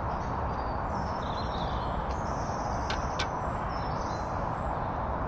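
Woodland ambience: a steady noisy background with small birds chirping now and then, and two light clicks in quick succession about three seconds in.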